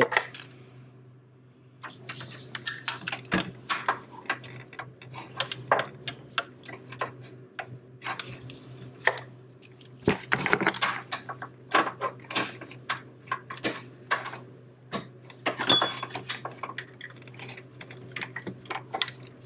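Hand socket ratchet clicking in short runs, with metal clinks, as an alternator bracket bolt is tightened; a faint steady low hum runs beneath.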